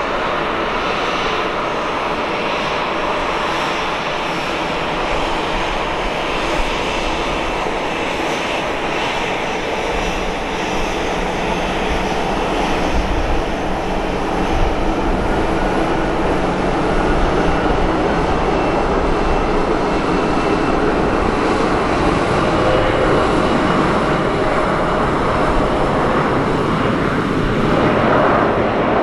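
Embraer 175 airliner's twin GE CF34 turbofan engines running on the runway and spooling up for the takeoff roll, growing louder from about halfway through.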